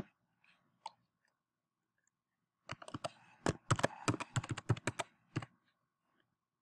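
Computer keyboard keys clicking as a password is typed: one click about a second in, then a quick run of about a dozen keystrokes lasting under three seconds, starting near the middle.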